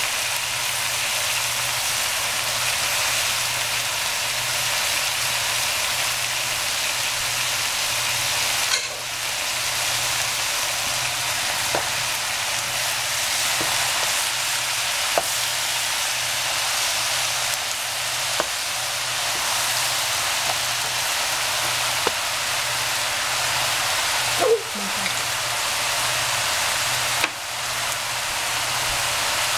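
Vegetables frying in hot oil in a pan: a steady sizzle, with a utensil clicking against the pan every few seconds as the food is stirred.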